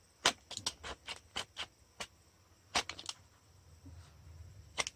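Snap-off utility knife blade scraping and cutting in short strokes: a dozen or so faint, sharp scratches, bunched in the first two seconds, with a few more about three seconds in and one near the end.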